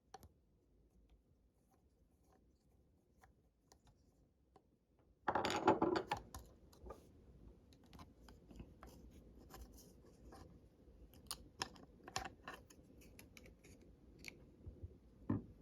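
Near silence for about five seconds, then a brief rustle and a run of small irregular clicks and scrapes: a screwdriver turning out the small screws that hold a laptop's 2.5-inch hard drive in its metal bracket.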